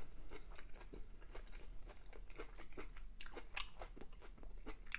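A person chewing a mouthful of chicken curry with vegetables and rice with the mouth closed: a faint, irregular run of small clicks and smacks, several a second, picked up close by a clip-on microphone.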